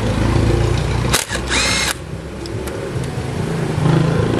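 A sharp click about a second in, then a brief whir from a small power tool, over a steady low hum.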